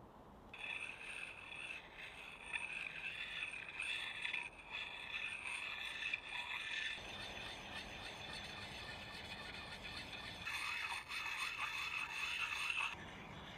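A round puck whetstone scraping along the steel bit of a hatchet as the edge is sharpened: a run of gritty stone-on-steel strokes with a faint ring from the blade, loudest over the last few seconds before stopping abruptly.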